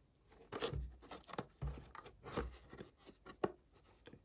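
A small toy packaging box being handled: scattered soft rustles, scrapes and light taps, with a sharper click about three and a half seconds in.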